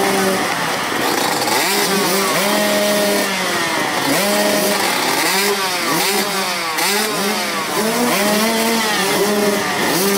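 A row of motocross bikes revving at the starting gate, many engines blipping their throttles over one another so that pitches keep rising and falling.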